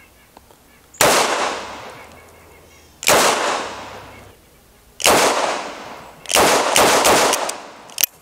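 Smith & Wesson 686-4 revolver, a .357 Magnum with a 4-inch barrel, fired outdoors in single shots. Three sharp shots come about two seconds apart, each ringing out for about a second, then a faster string of shots near the end.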